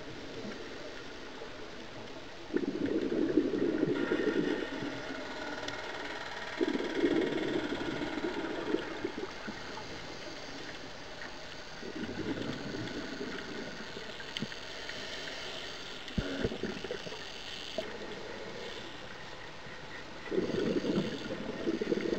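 Scuba diver's regulator breathing underwater: exhaled air bubbles out in five rough bursts, each one to two seconds long and about four to five seconds apart, over a steady hiss.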